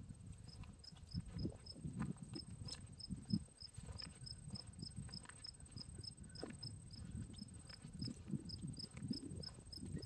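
An insect, likely a cricket, chirping in a steady rhythm of about three to four short high chirps a second, over a low, uneven rumble.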